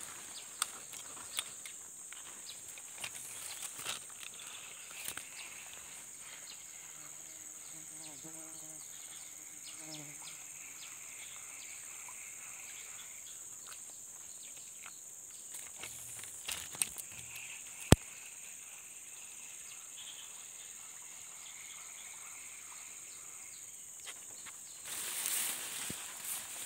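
Steady high-pitched drone of insects in forest. A single sharp click about two-thirds of the way through, and a short spell of rustling near the end.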